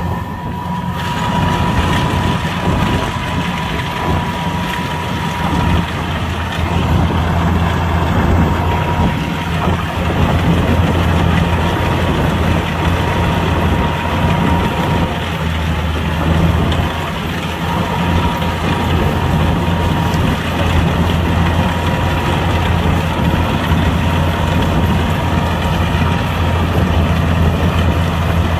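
Kubota combine harvester's diesel engine running steadily: a continuous low drone with a thin, steady high whine over it.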